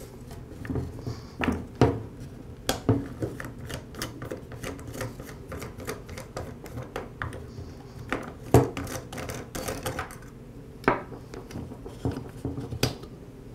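Irregular hard plastic clicks and light knocks from a Ryobi string trimmer's head as the bump knob is unscrewed and the line spool pulled out, with a few sharper knocks along the way.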